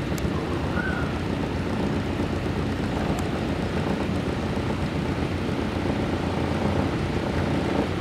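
Small waterfall pouring down over rocks: a steady rush of falling water.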